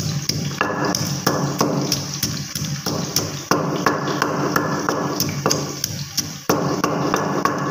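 Pestle pounding fresh ginger in a stone mortar: steady rhythmic knocks, about three a second.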